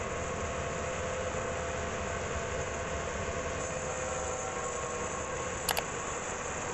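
Band sawmill running steadily, a constant mechanical drone with a few steady tones, as it works on dry kempas hardwood. Two sharp clicks come close together near the end.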